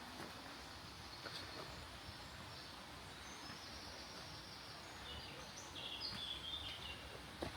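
A songbird singing faintly over steady outdoor background hiss, with short high phrases from about three seconds in until near the end.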